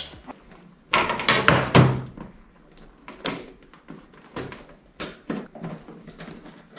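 A cardboard product box is handled on a wooden desk and cut open with scissors: a string of irregular knocks, scrapes and cardboard rustles, loudest about one to two seconds in.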